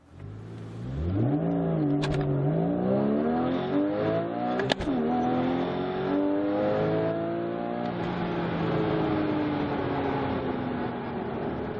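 Porsche Boxster GTS's 3.4-litre flat-six revving up and accelerating hard under full throttle through first gear, heard from the cabin. About halfway there is a sharp click and the pitch drops as it shifts into second on the 6-speed manual, then it climbs again before slowly falling off near the end.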